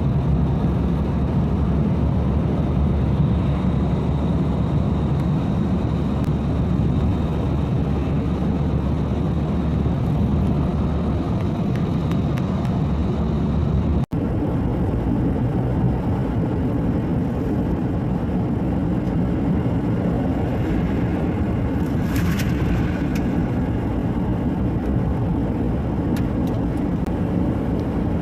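A car driving, with a steady low rumble of road and engine noise. The sound drops out for an instant about halfway through, and a short hiss comes up about two-thirds of the way in.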